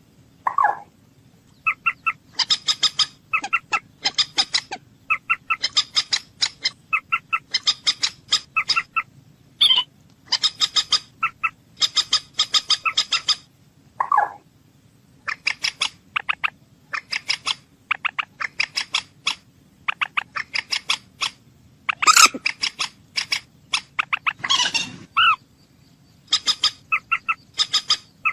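Common moorhen calling: bouts of rapid, clipped notes a second or two long with short gaps between, and a few longer, lower calls among them.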